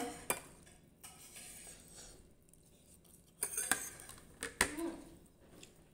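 Dishes and cutlery clinking now and then during a meal: a few scattered sharp clinks and taps of plates, the loudest about four and a half seconds in.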